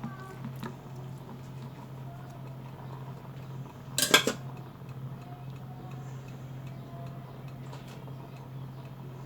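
A metal utensil clattering against a pot or dish once, sharply, about four seconds in, with a few faint clinks around it, over a steady low hum.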